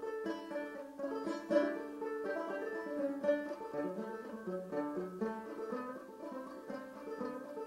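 Solo banjo playing a tune: a quick, continuous stream of plucked notes with a moving melody line.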